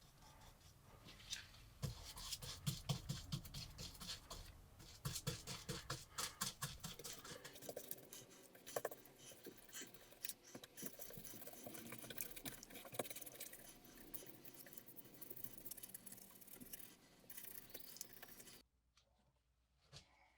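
Quick, dense scratching and scraping strokes from hand work on a rusty metal pocket knife. The strokes are sharpest early on, turn softer and scratchier after about seven seconds, and stop abruptly near the end.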